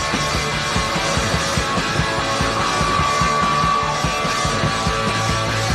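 Punk rock band playing live in an instrumental passage: distorted electric guitar, bass and fast, steady drums. A single high guitar note is held for a second or so about halfway through.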